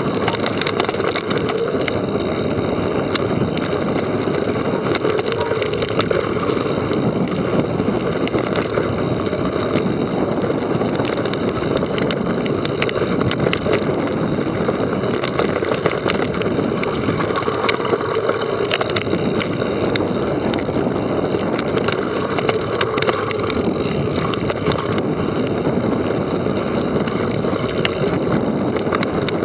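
Wind rushing over the microphone of a camera on a mountain bike riding down a trail. Underneath is the steady noise of the tyres on the dirt, with frequent small clicks and rattles from the bike.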